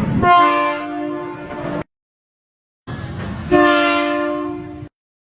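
Two blasts of a KAI Commuter Line electric train's horn, a steady chord of several tones. Each rises out of a rushing noise and is cut off abruptly, with about a second of silence between them.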